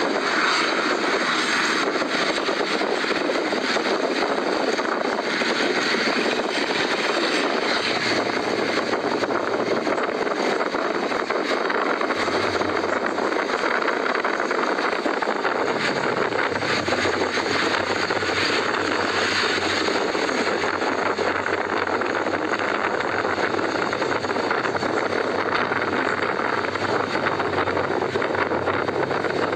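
Steady rush of wind noise and engine drone from a moving vehicle on the road. A low hum joins in about halfway through.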